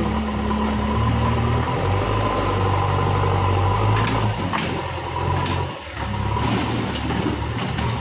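Diesel engine of a JCB 3DX backhoe loader running steadily under load as the front loader lifts a bucket of earth, its low hum shifting in pitch a few times and dipping briefly about six seconds in.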